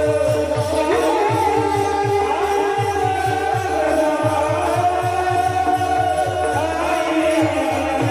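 Devotional kirtan music: a hand drum plays fast, even strokes under sustained melodic lines, some of which slide in pitch.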